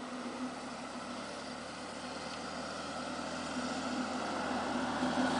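Radio-controlled Smart car driving on a dirt track, its motor a faint steady hum over a hiss of noise. It grows louder toward the end as the car comes closer.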